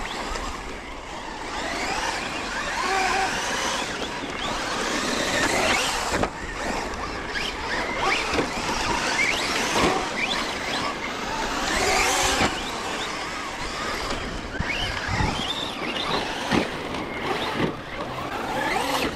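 Electric RC trucks running hard, their motors whining up and down in pitch as they rev and let off again and again, over a steady rushing noise, with a few short knocks.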